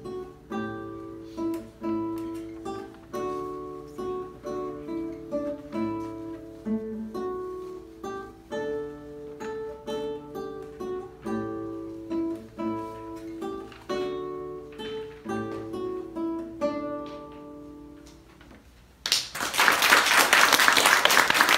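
Classical nylon-string guitar played solo, a plucked melody over bass notes, closing on a last note that dies away. About 19 seconds in, an audience breaks into loud applause, louder than the guitar.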